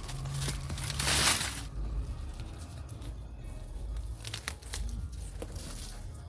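Crinkling, rustling handling of old woven sacks and soil, with a louder scraping rustle about a second in and a few sharp clicks later.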